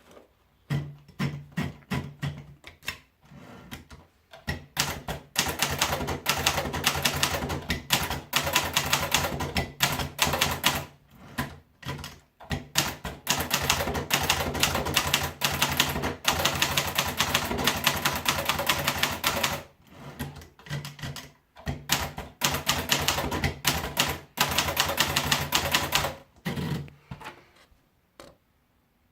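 Hermes Baby manual portable typewriter being typed on: fast runs of sharp keystroke clacks with brief pauses between runs, stopping a couple of seconds before the end.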